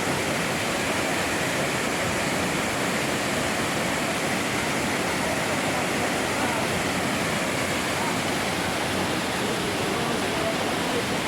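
The Urlătoarea waterfall: water pouring down and splashing, a steady rushing noise with no let-up.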